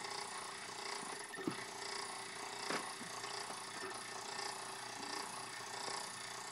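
Drop pipe of a submersible well pump being pulled up out of the well through a wooden frame: a few knocks and clicks, the sharpest about one and a half seconds in and near three seconds in, over a steady mechanical hum.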